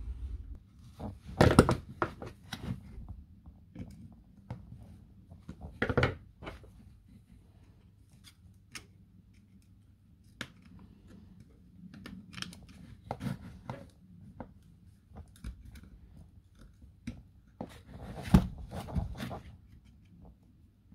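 A small metal pick clicking and scraping against the bent metal terminals of an opened Milwaukee M18 battery pack as they are straightened. A few louder knocks of the plastic battery case being handled on the wooden bench stand out, about a second and a half in, around six seconds in, and about eighteen seconds in.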